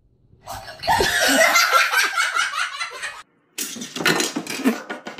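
People laughing hard in rhythmic bursts, which cut off abruptly about three seconds in; after a short pause more laughter follows.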